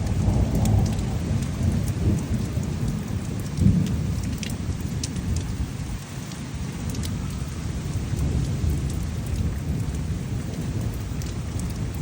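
Thunder rumbling low and continuously from a severe storm, with a louder swell about four seconds in, over a steady hiss and scattered sharp ticks.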